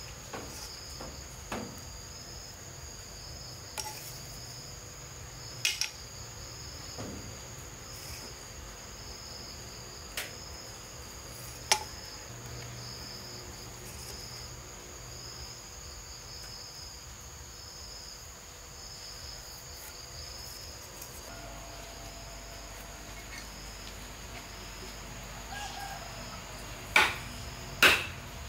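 Insects, likely crickets, chirring steadily: a constant high tone with a lower one pulsing about once a second. Occasional sharp knocks sound over it, with three louder ones close together near the end.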